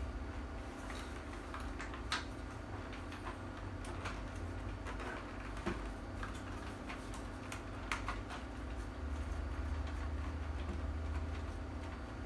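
Scattered light clicks and knocks as parts of a pulse rifle replica are handled and fitted, a few sharper ones standing out, over a low steady hum.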